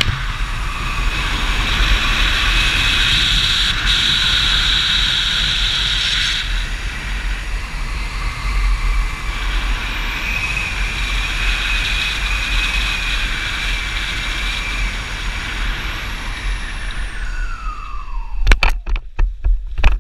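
Wind rushing and buffeting over the camera microphone during a skydive, with a steady high whine over it that falls in pitch about three seconds before the end. A quick run of sharp knocks follows near the end.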